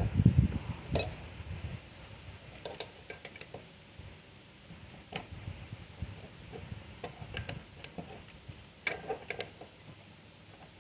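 Steel jaws and crossbar of a slide hammer puller clinking and tapping against a metal pulley as they are fitted around it by hand: scattered light metallic clicks, a few in quick clusters, after a low rumble in the first couple of seconds.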